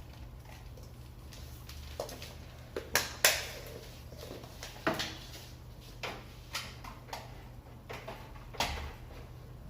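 Irregular plastic clicks and knocks from Makita 12V Max battery chargers being handled and plugged in, with a battery slotted into a charger; the loudest knocks come about three seconds in. A low steady hum runs underneath.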